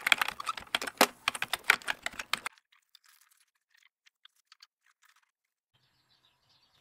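Typing on a computer keyboard, a fast run of key clicks for about two and a half seconds, then a few faint scattered clicks that stop about five seconds in.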